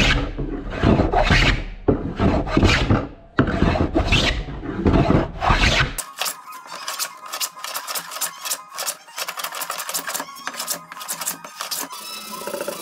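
Hand plane shaving the wooden rail of a surfboard in strong pushing strokes, about one a second. About halfway through the sound changes to lighter, quicker scraping with many small clicks as the edge is worked with a small hand tool.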